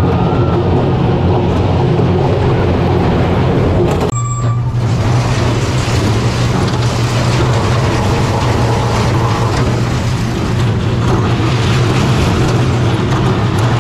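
Kiddie roller coaster train running along its track: a steady low rumble and rattle that breaks off abruptly about four seconds in and resumes with a stronger low hum.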